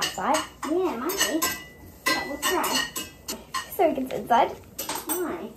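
Kitchen utensils and dishes clinking and knocking, many sharp strikes one after another, over a wavering sung melody.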